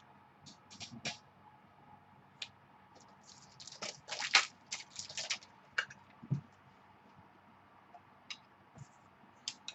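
Baseball trading cards being handled and flipped through: irregular soft rustles and light clicks of card stock, busiest in a cluster about halfway through.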